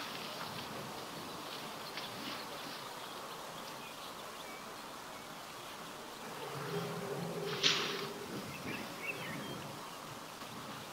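Steady outdoor hiss with an insect buzzing close to the microphone, strongest about six to eight seconds in. A sharp click comes near the end of the buzz.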